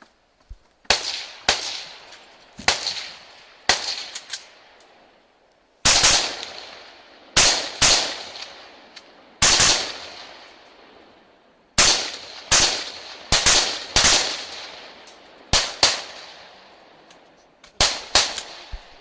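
A string of rifle shots, fired singly and in quick pairs with short pauses between groups, each shot followed by a long echoing tail.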